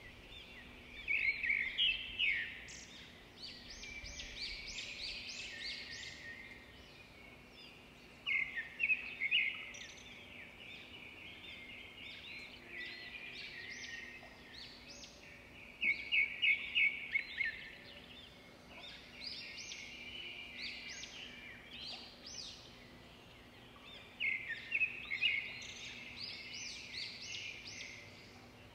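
A songbird singing in short phrases of quick, high chirping notes, a phrase every seven or eight seconds.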